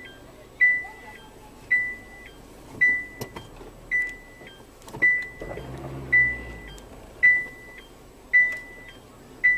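Electronic beep, one steady high tone about half a second long, repeating regularly about once a second. A low rumble comes in around the middle.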